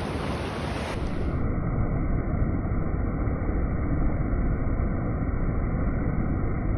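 Ocean surf washing and wind buffeting the microphone: a steady low rumble. About a second and a half in, the high end drops out and the sound turns duller.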